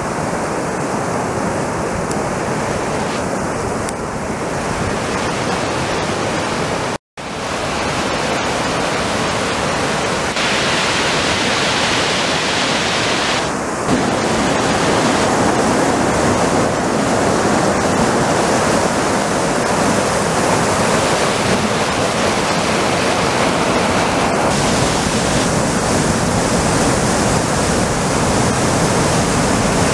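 Whitewater of a fast river rushing through a narrow rock canyon and over rapids: a steady, dense rushing noise. It cuts out for a split second about seven seconds in, and it gets louder about halfway through, close beside a rapid.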